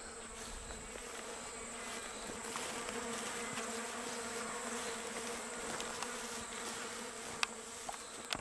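Insects buzzing steadily in the open paddock, a high continuous drone over a lower hum, with a couple of faint clicks near the end.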